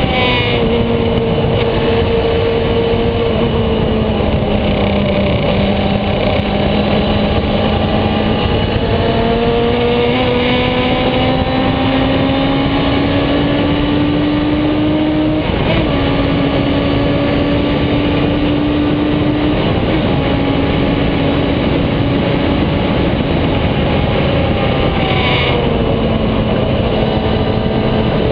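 Radical sports racer's engine pulling hard down a straight, heard from on board over heavy wind rush: the note climbs slowly for about ten seconds, dips a little about halfway through and again a few seconds later, then falls near the end as the car slows for a corner.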